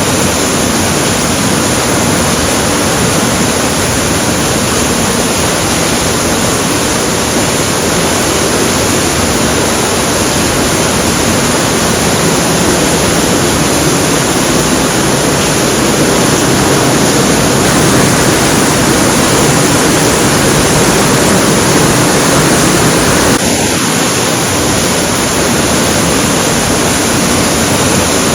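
Heavy rain pouring down in a steady, loud, dense hiss.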